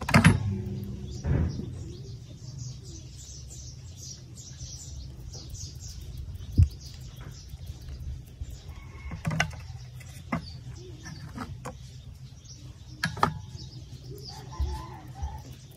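Small birds chirping over and over above a steady low hum, broken by several sharp clicks and knocks, the loudest about six and a half seconds in.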